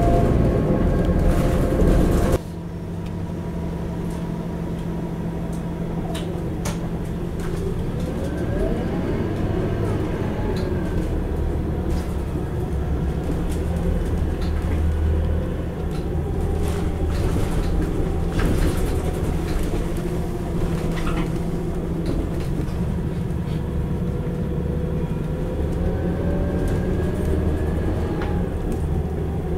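Scania K94IB coach heard from inside the passenger saloon: the rear engine running with the ZF automatic gearbox whining, the whine rising in pitch a few seconds in and again near the end. Light interior rattles come through over it.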